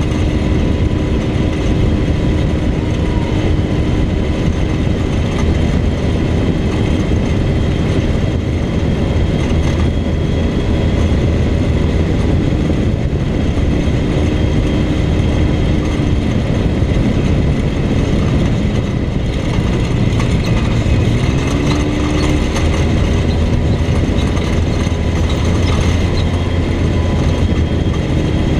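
Off-road vehicle's engine running while driving along a dirt road, under a steady rumble of tyres and road noise. The engine pitch dips and rises a few times, climbing noticeably about three-quarters of the way through.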